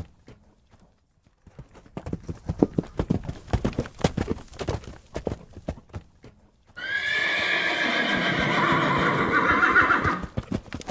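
Horse hooves clip-clopping in a steady run of beats, then a loud horse whinny lasting about three and a half seconds, starting about seven seconds in, with the hoofbeats resuming just after it.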